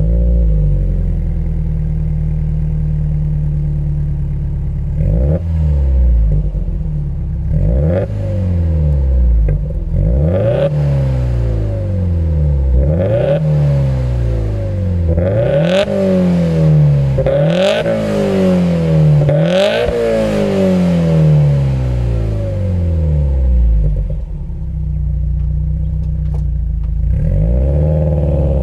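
Subaru WRX STI's turbocharged 2.0-litre flat-four running through an HKS aftermarket muffler: it idles, then from about five seconds in is revved in a series of quick blips, each rising and falling back, higher in the middle of the run, before settling back to idle near the end.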